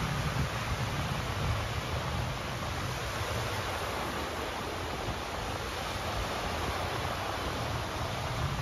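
Ocean waves breaking on a beach: a steady rush of surf that eases a little in the middle and swells again near the end.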